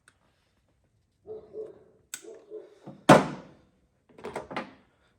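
Tool clicks, then a loud sharp snap about three seconds in, as cutters close through a spark plug wire, followed by a few lighter clicks.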